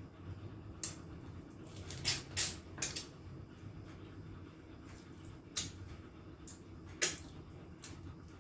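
Eating sounds close to the microphone: a handful of short, sharp clicks and crunches of chewing and handling crab and squid, over a steady low hum.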